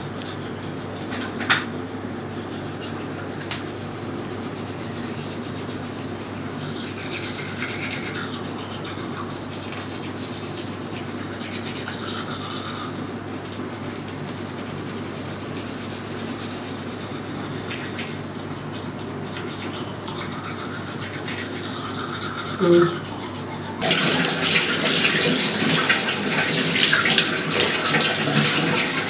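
Toothbrush bristles scrubbing teeth over a steady low hum. About 24 seconds in, a tap is turned on and water runs loudly into the sink.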